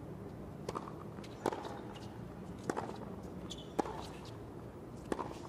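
Tennis serve and rally on a hard court: sharp pops of the ball off the rackets and the court, about one a second, over a faint steady background hum.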